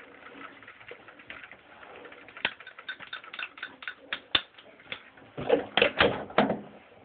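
Curling iron being worked through hair: its clamp clicks sharply a few times while the hair is wound and handled. Near the end there is a louder run of handling noise.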